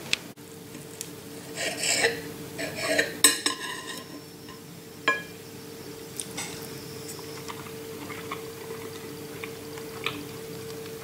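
Knife and fork scraping and clinking on a clay plate while cutting an omelette. The clatter is busiest in the first few seconds, with a sharp click about five seconds in and only light taps after that, over a faint steady hum.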